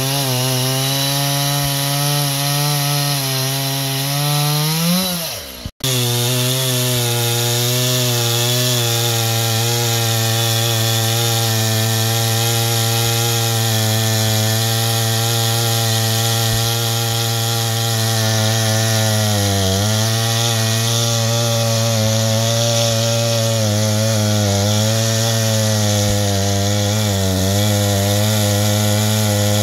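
Two-stroke chainsaw running at high throttle, cutting through a waterlogged fallen log at the waterline. Its pitch rises, then the sound breaks off abruptly about six seconds in and resumes. After that it runs steadily, with small dips in pitch as the chain bogs in the wood, the deepest about twenty seconds in.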